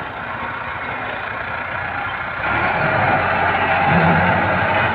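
Massey Ferguson 385 tractor's four-cylinder diesel engine running as it tows a loaded thresher through loose sand. About halfway through, the engine gets louder and stays up as it works harder under the load.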